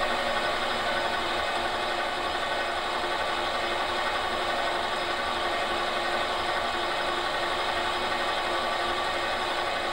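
Metal lathe running steadily while the turning tool cuts a brass bar down in diameter: a continuous machine hum with several held tones over a cutting hiss.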